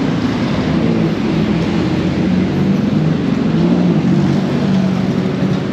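City street traffic: motor vehicle engines running and passing over a steady wash of road noise.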